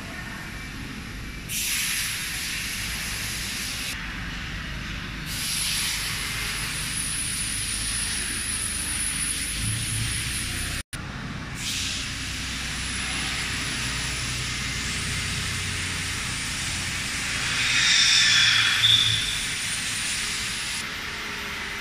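Steady hissing noise with a faint high whine, jumping abruptly in level a few times and growing louder for a moment near the end.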